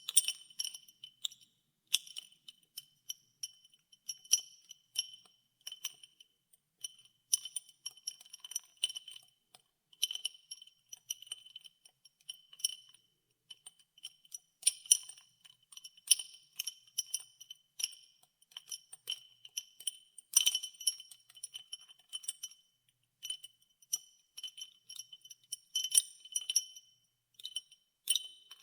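Ice cubes clinking against a glass as ice water is stirred. The clinks come irregularly, several a second, each with the glass's high ringing note, in louder flurries around the middle and again near the end.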